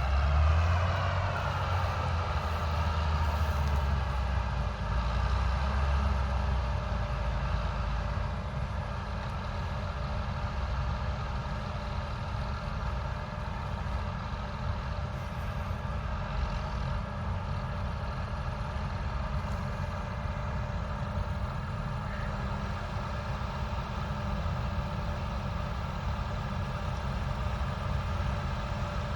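Large diesel harvest machinery, a combine harvester or tractor, running steadily with a deep rumble. Its pitch falls over the first couple of seconds, then holds steady.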